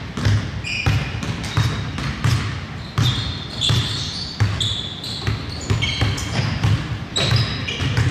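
A basketball being dribbled on a hardwood gym floor, bouncing steadily about twice a second, with short high-pitched sneaker squeaks in between.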